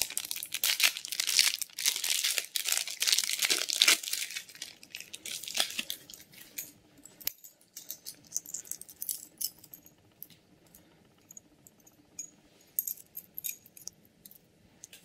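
Thin plastic packaging bag crinkling and tearing as it is cut and pulled open for about four seconds, then scattered light clicks and small metallic clinks.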